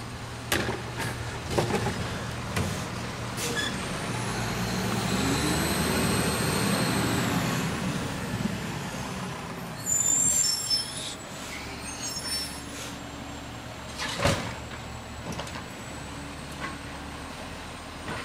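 Garbage truck's engine running, revving up and back down over several seconds in the middle. High squeaks about ten seconds in, with sharp knocks here and there and a louder one about fourteen seconds in.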